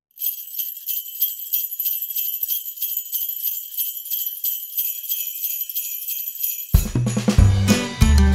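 Sleigh bells shaken in a steady rhythm, the opening of a music track; nearly seven seconds in, the full song enters with bass and melody.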